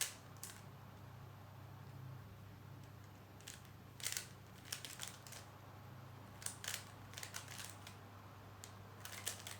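Rubik's cube layers being turned by hand: scattered sharp plastic clicks, some in quick runs of several turns, over a steady low hum.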